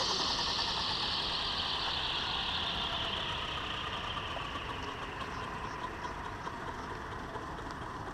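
Electric RC EC145 scale helicopter's motor and four-blade rotor spooling down: a high whine that falls steadily in pitch and slowly fades as the blades slow.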